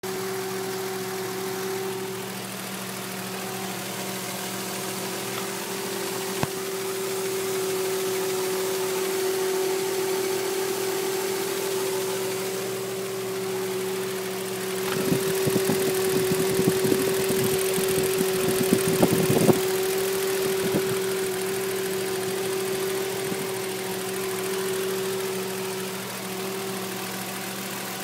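A 2005 Nissan Xterra's weird buzzing sound: a steady, even buzz over a lower hum. About halfway through there is a stretch of rapid clicking and rattling.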